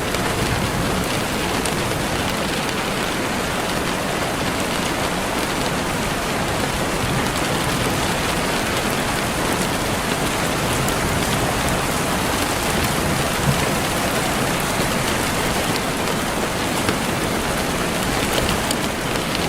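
Steady rain falling on a surface, an even hiss with occasional small drop ticks.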